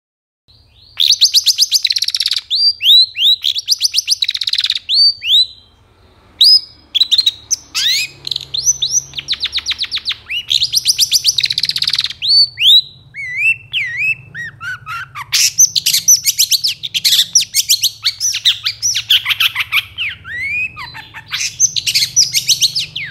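Long-tailed shrike (cendet) singing hard: fast runs of sharp, high-pitched chirps and rapid trills in near-continuous bursts, with a short break about six seconds in.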